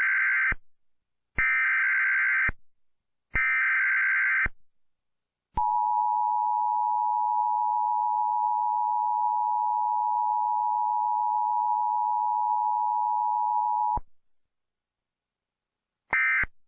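Emergency Alert System broadcast tones: three harsh data bursts about a second each, then the steady two-pitch attention tone held for about eight seconds and cut off. Near the end come the first short end-of-message bursts.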